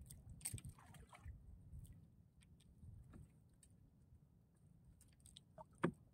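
Faint water lapping against a small outrigger boat's hull, with scattered light clicks and one sharper knock near the end.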